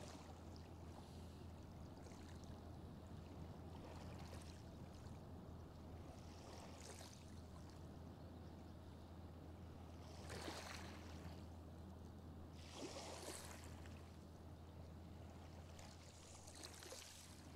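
Near silence: faint river water washing at the bank in several soft swells, over a low steady hum.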